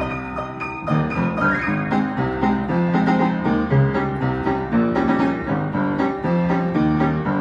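Piano playing a march, with a steady pattern of low bass notes under busy chords and melody.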